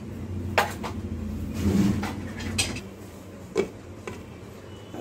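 Glass pan lid with a metal knob being handled and set down on a cooking pan: several sharp clinks and knocks, with a short scraping noise about two seconds in.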